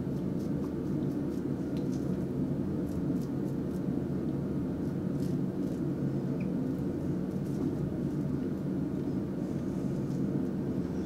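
RazoRock German 37 slant safety razor scraping across stubble under the lower lip in a few short, faint strokes. A steady low hum in the room is the loudest sound.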